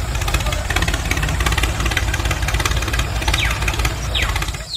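Tractor engine running steadily with a fast, even chugging pulse, while a miniature toy tractor drives; it cuts off abruptly at the very end.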